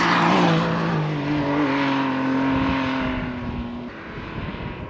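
Off-road vehicle's motor running at a steady pitch, with a rush of tyre and dirt noise at the start. It fades away after two to three seconds as the vehicle moves off.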